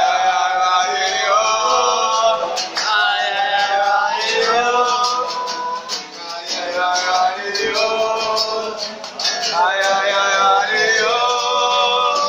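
Acoustic guitar played with a man singing along: a live, informal song.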